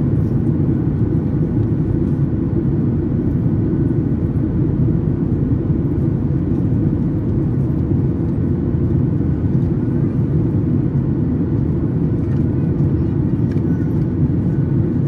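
Steady low cabin rumble inside a Boeing 737 MAX 8 in flight: the drone of its two CFM LEAP-1B engines and air rushing past the fuselage.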